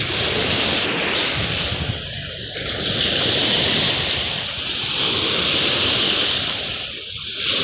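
Choppy lake waves washing and breaking against the shore, swelling and easing in surges with short lulls about two and a half seconds in and near the end. Wind is blowing across the microphone.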